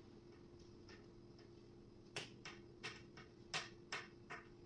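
Faint, light clicks and taps, about six in two seconds in the second half, from furniture-kit parts and hardware being handled during assembly, over a steady low hum.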